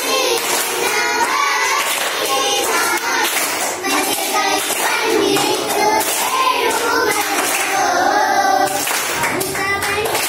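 A group of schoolchildren singing a Malayalam poem together, clapping their hands along with the song.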